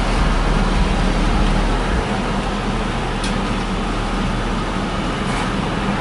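Steady hum and hiss of an idling car heard from inside its cabin; the deep low rumble drops off about two seconds in.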